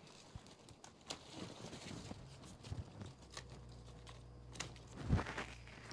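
Rustling and crinkling of grapevine foliage and grape clusters being handled, with scattered sharp clicks. A low steady hum comes in about halfway, and there is a single louder thump near the end.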